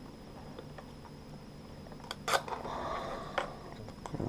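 Faint clicks of a clear plastic lure box being handled. About two seconds in comes a sharp click and then about a second of soft rasping as the sticker sealing the box is peeled off.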